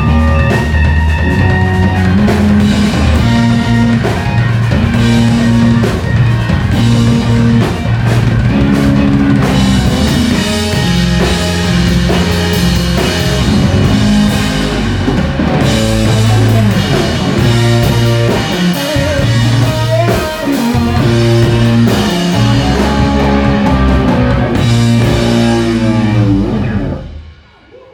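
Live blues-rock band playing: electric guitars over a drum kit. The song ends suddenly about a second before the end.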